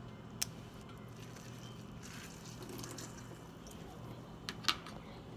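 Scissors snipping into a soft homemade squishy: a few sharp clicks, the loudest near the end, with faint wet squishing between them.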